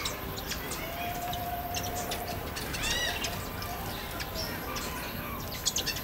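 Small birds chirping around a garden birdhouse: scattered short, high chirps, with one clearer call about halfway through.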